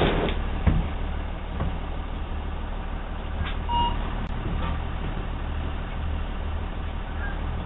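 Delivery box truck's engine idling steadily, a low even hum, with a brief electronic beep a little under four seconds in.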